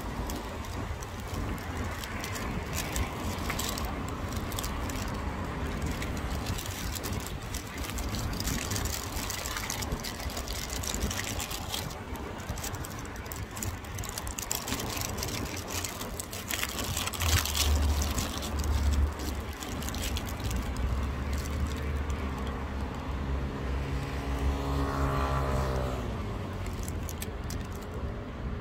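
Outdoor traffic noise, with a low rumble about two-thirds of the way in and a vehicle engine rising and falling in pitch as it passes near the end.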